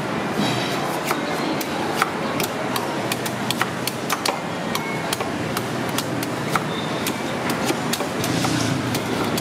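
Irregular sharp knocks and taps of knives and a cleaver chopping and shaving the husks off coconuts on wooden chopping blocks, over a steady background of traffic noise.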